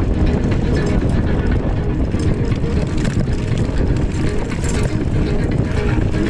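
Wind rushing over the microphone with a mountain bike rattling and clattering over rough ground, a steady loud rumble full of small knocks.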